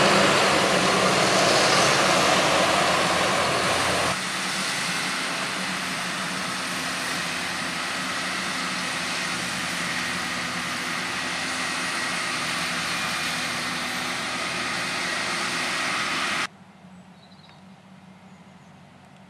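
Heavy farm machinery engines running steadily during maize harvesting. The sound steps down suddenly about four seconds in, holds steady at a lower level, then cuts off abruptly near the end, leaving only faint background.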